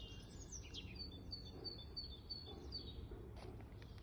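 Small birds chirping: a faint run of short, high, repeated notes, over a steady low background rumble.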